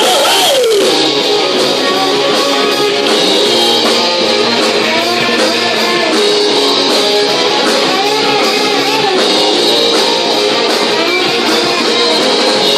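A live rock band plays an instrumental passage with guitar to the fore, one note sliding down just after the start.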